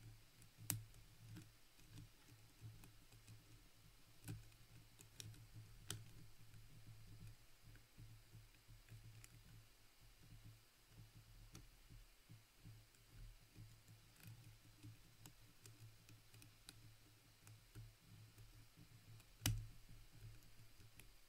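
Faint, scattered metallic clicks of a hook pick working the pin stack of an Assa Twin 6000 lock cylinder under light tension, with two sharper clicks, one about a second in and one near the end.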